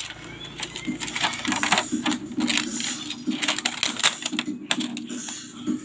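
Rapid, irregular clicks and clatter of hard objects being handled, consistent with amplifier circuit boards being picked up and moved about.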